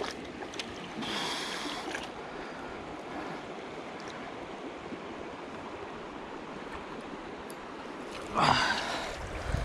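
Shallow creek water running steadily over stones, with a fish splashing in the shallows at the water's edge in the first couple of seconds. A brief, louder sound falling in pitch comes near the end.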